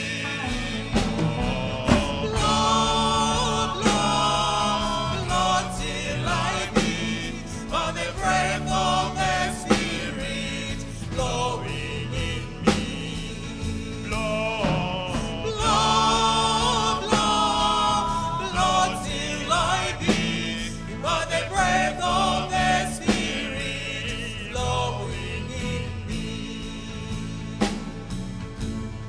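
Choir singing a gospel hymn with instrumental accompaniment, the voices over steady low notes.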